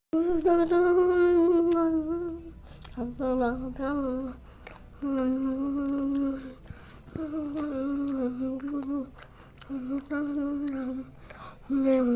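A voice humming a slow tune in long held notes, phrase after phrase with short pauses between them.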